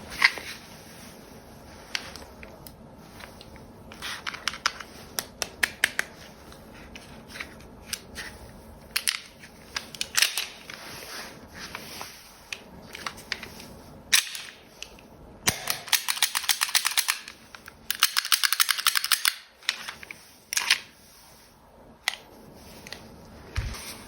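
Toy gel-ball pistol, a Beretta 92FS replica, firing with sharp snapping shots: single shots and short strings at first, then two long, rapid bursts past the middle.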